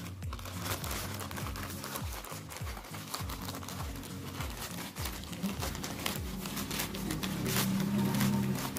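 Plastic courier mailer bag crinkling and tearing as hands pull it open, over background music with a steady beat.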